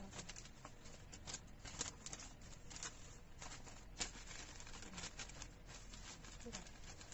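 Wrapping paper rustling and crinkling as a gift box is wrapped by hand: a run of irregular soft crackles, with one sharper snap about four seconds in.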